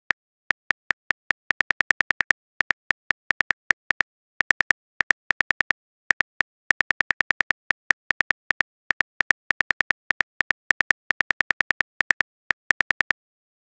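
Typing sound effect: rapid, irregular keyboard clicks in short runs with brief pauses, the sound of a message being typed.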